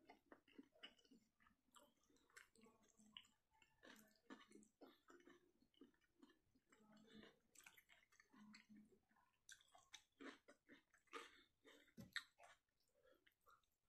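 Faint chewing and wet mouth smacks of a person eating fish curry and rice with their fingers, with many irregular small clicks.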